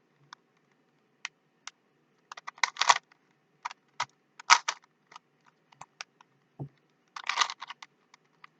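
Plastic Rubik's Cube being twisted: irregular clicks and short clattering runs as the layers are turned, in three or four quick bursts with single clicks between.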